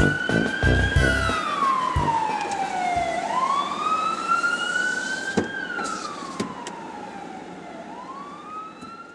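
Emergency vehicle siren wailing: one tone slowly rising and falling in pitch, each sweep lasting about four and a half seconds, over street traffic noise, fading away toward the end.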